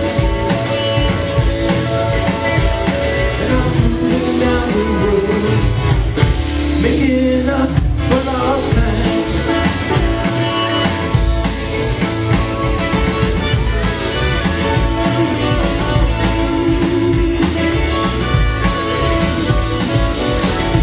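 Live country band playing, with electric guitars and drums, a fiddle and pedal steel guitar on stage, picked up loud by a camera microphone in the audience. Singing may be mixed in.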